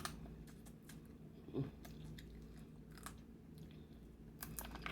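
A person chewing blue crab meat, with soft wet mouth clicks and a cluster of sharper clicks near the end.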